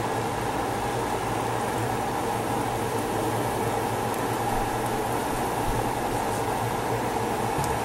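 Steady kitchen hum and whooshing noise with a low drone and a few faint ticks, while eggs cook in the omelette pan on the stove.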